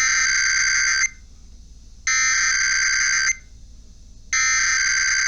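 Emergency Alert System SAME header: three bursts of digital data tone, each about a second long with about a second between them, the coded signal that opens an EAS test alert.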